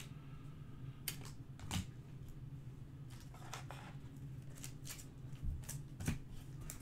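Faint rustles and light clicks of trading cards being handled and sorted, with a few sharper clicks about a second in, near two seconds and around six seconds, over a steady low hum.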